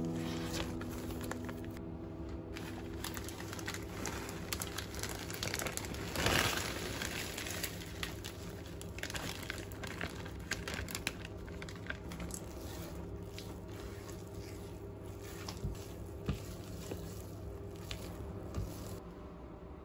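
Clear plastic zipper bag crinkling and rustling as crushed almonds are shaken out of it into a stainless steel bowl, loudest about six seconds in, then a silicone spatula scraping and stirring thick cocoa batter in the bowl with small irregular clicks.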